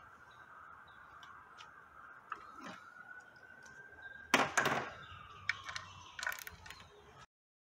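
Metal hand tools clattering loudly about four seconds in as a socket is picked out of a bench tool tray, then a few sharp metal clicks as it is fitted onto a transmission case bolt. A faint steady high whine runs underneath and sags in pitch near the end, and the sound cuts off abruptly just before the end.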